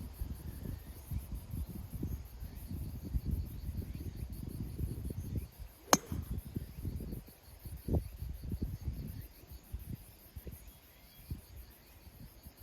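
Gusty wind buffeting the microphone, with insects chirring in a fast, steady pulse. About six seconds in, a golf club strikes a ball once with a sharp crack.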